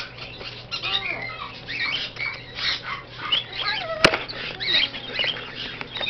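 Caged parrots and other pet birds chattering with many short chirps and squawks overlapping, plus a single sharp click about four seconds in.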